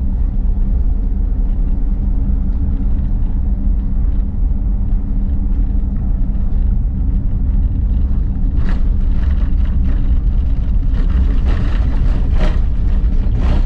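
Steady low rumble of a car's engine and tyres, heard from inside the moving vehicle. In the last few seconds there are some short, sharper noises over it.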